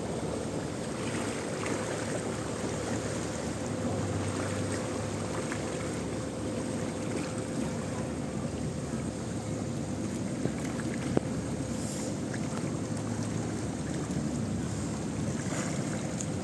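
Swollen river in flood, fast brown water rushing in a steady wash of noise. A single sharp click about eleven seconds in.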